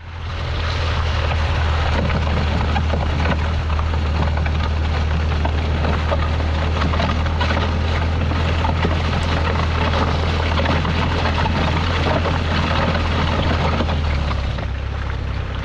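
2008 Volvo C30 on the move: a loud, steady low rumble with rushing noise over it. The owner calls the front-end noise horrible and compares it to nails on a chalkboard; it is worst when turning left, and he guesses a tyre is rubbing on something.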